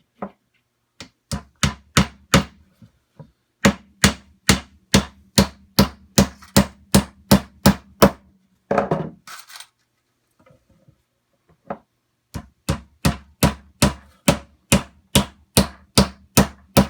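Hammer driving nails into the finger-jointed corners of a wooden Langstroth hive body: quick, even blows at about three a second. After a run of blows there is a short scrape and a pause of a few seconds, then the hammering starts again near the end.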